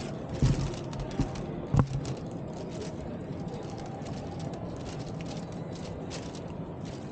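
Steady background din of a busy exhibition hall, with three dull low thumps in the first two seconds, the last the loudest.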